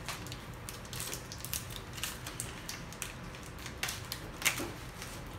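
Plastic chocolate-bar wrapper crinkling and crackling as it is torn open and unwrapped by hand, in scattered sharp crackles.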